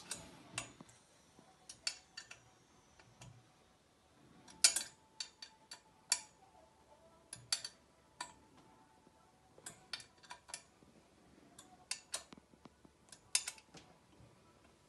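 Stunt scooter's metal handlebar and clamp being fitted by hand: scattered sharp metallic clicks and taps in small clusters every second or two.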